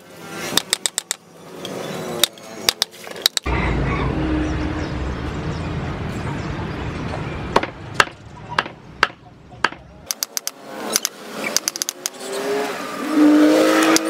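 Cleaver chopping raw meat on a round wooden chopping block: quick runs of sharp knocks. From about three and a half seconds in, a steady low rumble sits under the strokes for some six seconds.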